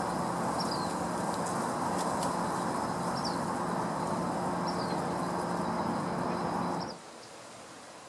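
Steady mechanical rumble with a low droning hum, like a distant engine, under a few short, high, falling chirps of a small unseen bird. The rumble cuts off abruptly about seven seconds in, leaving a quieter hiss.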